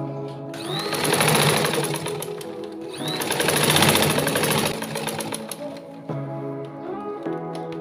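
Butterfly sewing machine stitching in two quick runs, a fast even clatter of the needle: the first lasts about two seconds, then after a brief pause a second of about a second and a half. Background music plays underneath.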